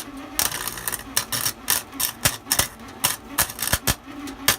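Harbor Freight wire-feed welder arc crackling and popping in an irregular sputter of sharp snaps, several a second.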